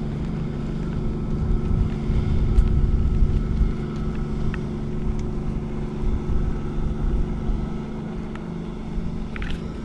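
Wind buffeting the microphone in gusts high up on a parasail, over a steady engine drone from the towing motorboat far below.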